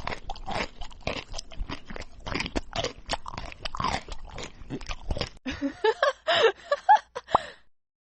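Crunchy food being bitten and chewed close up, a rapid irregular run of crunches, followed about five and a half seconds in by a few short squeaky pitched vocal sounds before it cuts off.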